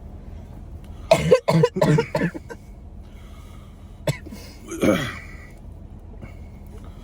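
Person coughing: a quick run of four or five coughs about a second in, then one shorter cough or throat-clear near five seconds in, the throat irritated by hot pepper tincture.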